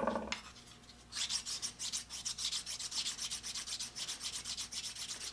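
Steel lathe chuck jaw being dressed by hand with a flat abrasive bar, in quick short back-and-forth rubbing strokes, about four a second, starting about a second in. The jaw is being eased because it won't slide into the chuck properly.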